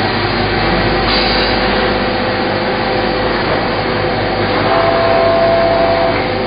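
Steady din of CNC machine-shop machinery running, with a steady hum. A higher tone joins in for about a second and a half near the end.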